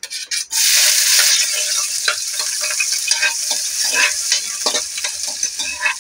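Minced garlic dropped into hot oil in a wok, bursting into a loud sizzle about half a second in and sizzling steadily after. A metal spatula clicks on the plate at the start, then scrapes as it stirs the garlic around the pan.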